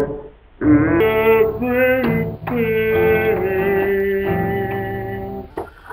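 Amateur recording of singing over acoustic guitar, with long held sung notes and a brief drop-out about half a second in. The recording is marred by a computer that couldn't keep up.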